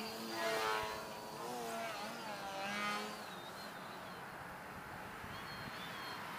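Radio-control Edge 540T aerobatic plane in flight: its motor and propeller hum, the pitch swinging up and down with throttle and manoeuvres. It is louder in the first three seconds, then settles to a steadier, quieter whine.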